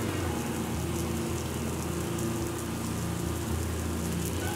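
Water spray from the spinning arms of a National Walking Sprinkler A5 pattering steadily on concrete, like rain, with a low steady hum underneath.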